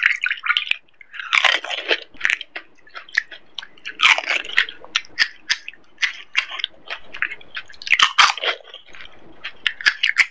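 Close-miked eating: crisp panipuri shells and raw green chillies crunched and chewed, with many sharp crackling clicks. Louder crunching bites stand out about a second and a half, four seconds and eight seconds in.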